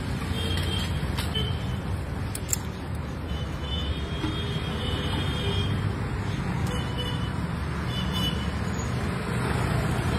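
Outdoor street ambience: a steady low rumble of road traffic, with a few short, faint high chirps scattered through it.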